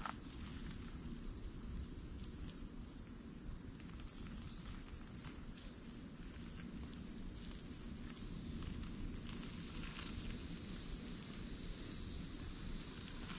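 Steady high-pitched insect chorus droning without a break, over a low background rumble.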